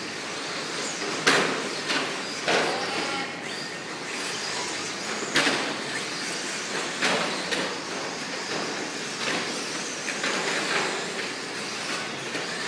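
Radio-controlled short course trucks racing on a dirt track: a steady whirring of motors and tyres, broken by frequent sharp clacks and knocks from the trucks.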